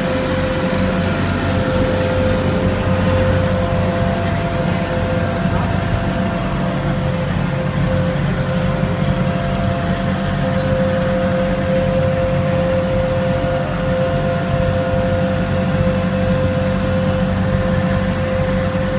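Passenger boat's engine running steadily under way, a constant low drone with a steady high-pitched whine over it.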